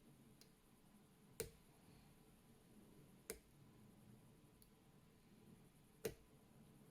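Three sharp clicks, spaced a couple of seconds apart, with two fainter ticks between, from a pick and tension wrench working the pins of a Mako 427 pin-tumbler padlock during single-pin picking.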